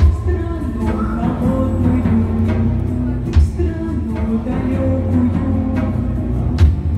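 Live band music: a woman singing over bass guitar and deep drums, with three heavy drum beats about three seconds apart.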